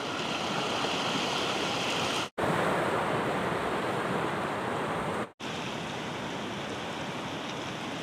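Sea surf washing on a shore, a steady rushing noise, heard in three short clips, each broken off abruptly by a cut about two and a half and five and a half seconds in.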